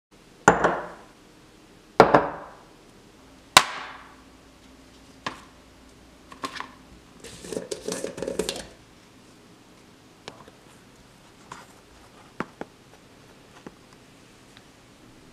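Kitchen handling sounds of sandwich making: three sharp knocks with a ringing tail in the first four seconds, then a plastic peanut butter jar lid being twisted open with a run of scraping clicks in the middle, and light clicks and scrapes of a knife spreading peanut butter on bread toward the end.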